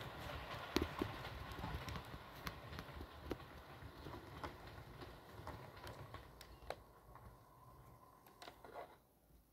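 Model electric train running on the layout track: a faint motor hum with irregular clicks of the wheels over rail joints and points, fading away as the train moves off.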